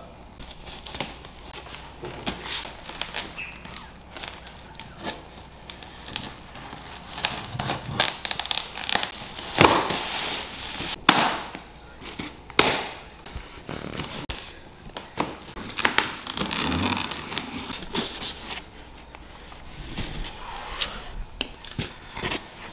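A strapped cardboard shipping box being opened and unpacked: cardboard flaps and plastic wrap rustling and crinkling, with irregular clicks and knocks from handling.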